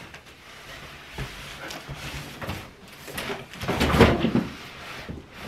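Cardboard shipping boxes being shifted and set down on the floor: scuffing and knocks, with the heaviest thump about four seconds in.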